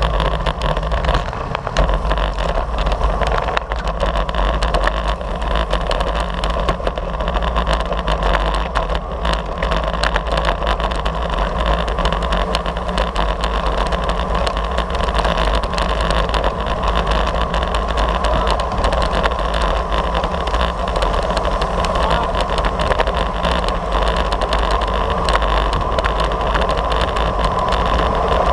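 Steady rush of wind buffeting an action camera's microphone on a moving road bike, with a deep rumble under it and no break.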